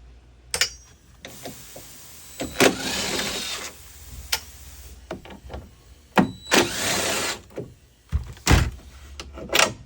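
Cordless driver with a Torx bit backing out the bolts that hold a door latch, in two whirring runs of about a second each, with clicks and knocks of the bit and metal between them and a dull thump near the end.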